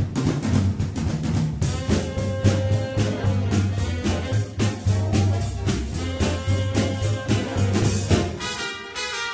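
Music with brass and drums over a steady beat; the bass drops out briefly near the end.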